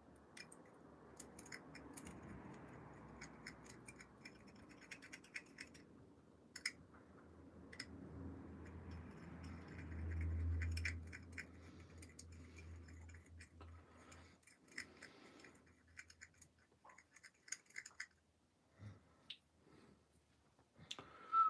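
Wooden toothpick stirring thinned paint in a small plastic cup, faint scraping with light ticks against the cup. A low hum swells briefly about ten seconds in.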